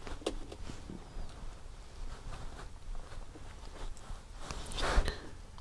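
Small clicks and taps of hard plastic RC kit parts and a hex screwdriver being handled on a work mat, with a brief rush of noise and one louder knock about five seconds in.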